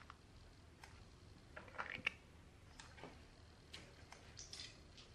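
Faint, scattered light clicks and ticks from handling a small tweeter diaphragm assembly and its metal solder tabs in the fingers, with a short cluster of clicks about two seconds in.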